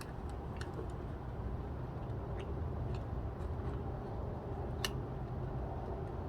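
A few scattered light clicks and ticks from hands working small parts of a video doorbell install, such as wires and mounting hardware, with the sharpest click just under five seconds in. A steady low rumble runs underneath.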